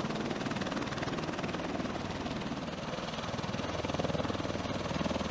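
MV-22 Osprey tiltrotor running on the ground in helicopter mode, its proprotors turning with a rapid, steady beat of the blades.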